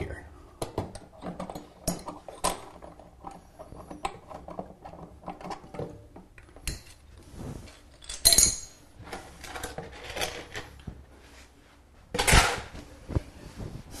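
Locking pliers and metal plumbing parts clinking and clattering as the nut under a toilet fill valve is loosened and removed: many scattered small clicks and knocks, with two louder, longer bursts of noise about eight and twelve seconds in.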